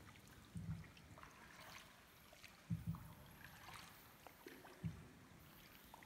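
Paddled boat gliding through the underground cave river: four dull knocks, about half a second, three (a quick pair) and five seconds in, over faint water dripping and trickling.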